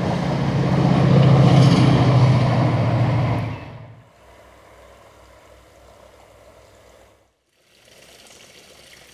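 A vehicle's engine running loudly as it passes, swelling to a peak about a second and a half in and then dropping away sharply a little after three seconds, leaving only faint steady outdoor background.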